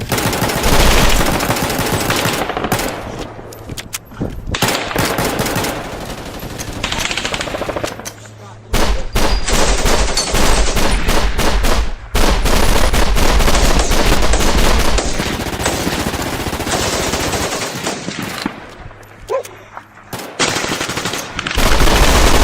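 Sustained automatic gunfire: long, dense bursts of machine-gun fire. It drops into brief lulls about eight seconds in and again around eighteen to twenty seconds, then resumes at full intensity.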